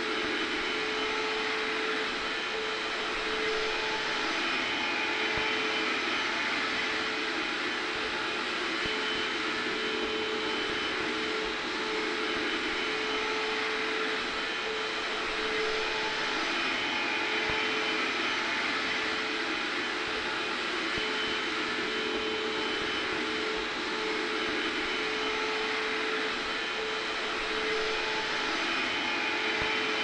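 Hair dryer running continuously, mixed with a vacuum cleaner in the background: a steady rush of air with a constant motor hum, unchanging in level.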